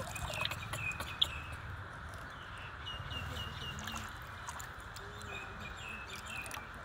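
Small birds chirping: short, high, thin notes in quick runs of four or five, with light splashes and a sharp tap about a second in.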